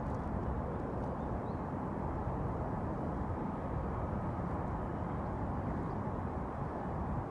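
Steady low outdoor rumble across open water, with no distinct events.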